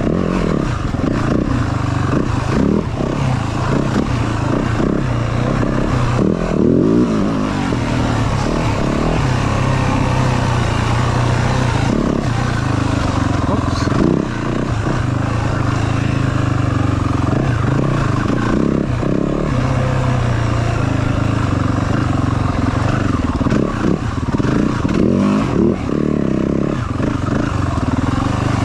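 Yamaha WR450F's single-cylinder four-stroke engine running under changing throttle as the dirt bike is ridden over rough trail, with scattered knocks and clatter.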